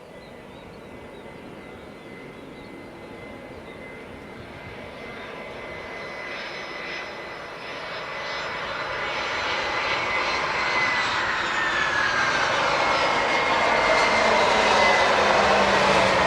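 Airliner's engines growing steadily louder as the aircraft approaches and passes, with high whining tones that slide down in pitch in the second half.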